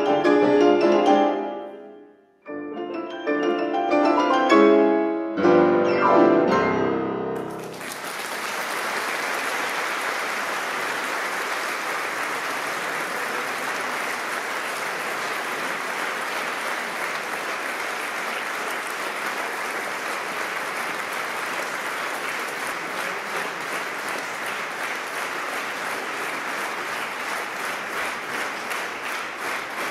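Two grand pianos playing the final loud chords of a piece, with a short break about two seconds in; the music stops about eight seconds in and the audience breaks into steady applause.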